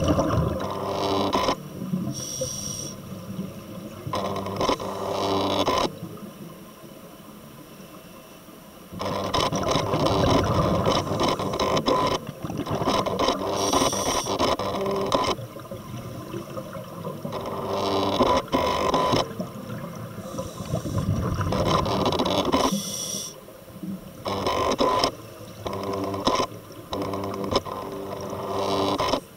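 Scuba diver's regulator breathing underwater: hissing inhalations alternating with bubbling exhalations in uneven rounds, with a longer pause about a third of the way in.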